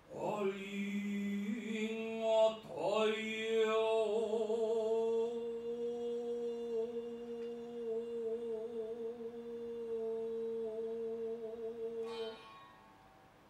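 A voice chanting Buddhist goeika (pilgrimage hymn) with no accompaniment. A short opening phrase is followed by a sharp strike about two and a half seconds in, then one long held note with a slight waver for about nine seconds, which stops shortly before the end.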